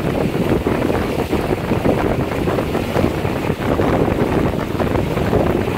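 Wind buffeting the microphone aboard a small boat under way, a steady rough rushing with the wash of water beneath it.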